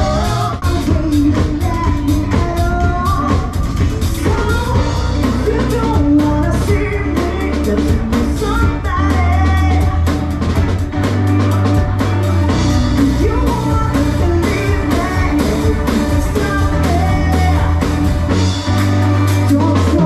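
Live rock band playing: a woman singing the lead over drum kit, electric bass and electric guitar, with a steady, heavy bass line and regular drum hits.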